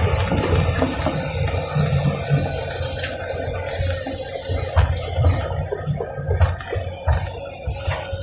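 Excavator's diesel engine running with an uneven low rumble, a steady whine and hiss, and a few short knocks.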